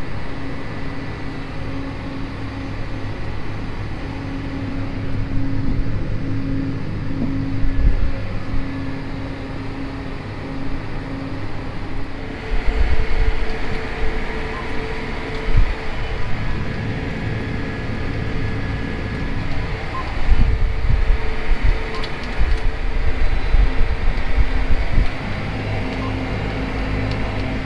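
Tractor engine running under way, heard from inside the cab, a steady drone whose note shifts higher about twelve seconds in.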